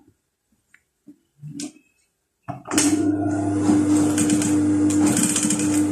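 For the first half, near silence with a couple of faint handling sounds. Then, about halfway through, a JUKI industrial sewing machine starts suddenly and runs steadily, stitching the turned neckline facing.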